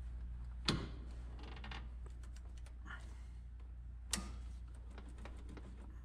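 Hand tools at work on a car's steering idler arm: a socket ratchet clicking in short runs, with two sharp metal knocks, one just under a second in and one about four seconds in.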